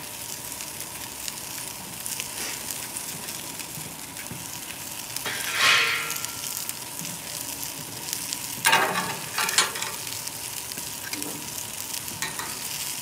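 Vegetables sizzling on the hot grate of a gas grill: a steady hiss, with a short louder noise about six seconds in and a few sharp clicks around nine seconds.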